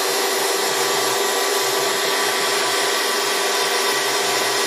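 Warner & Swasey No. 3 ram-type turret lathe running, its geared headstock and spindle giving a steady whir with a constant hum tone.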